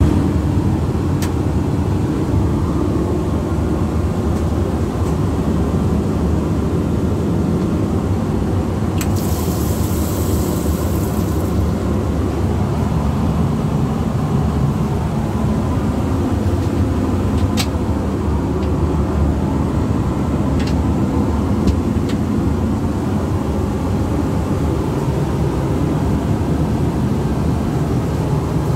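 Steady low drone of an Airbus A320 in flight, heard inside its lavatory: engine and airflow noise. A brief hiss comes about nine seconds in and lasts a couple of seconds, and a few sharp clicks are scattered through it.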